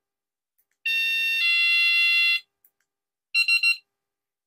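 Cuteefun door and window alarm's main unit sounding a two-note electronic chime, the second note lower and longer, like a doorbell ding-dong, as its sound mode is switched from the remote. About two seconds later it gives a short burst of quick beeps.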